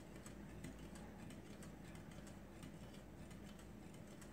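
Wire whisk stirring a thin egg-and-milk mixture in a glass bowl, its wires tapping the glass in faint, regular ticks.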